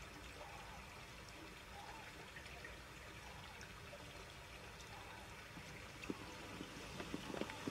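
A small stream running steadily, faint, with a few soft ticks close together near the end.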